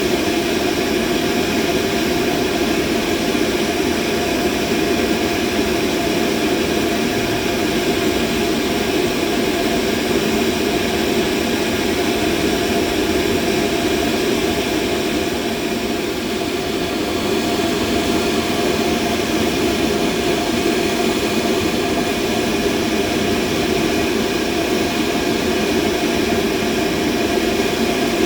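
Steady machine hum, a continuous mechanical drone heaviest in the low middle, with a few faint steady tones above it and no change in character.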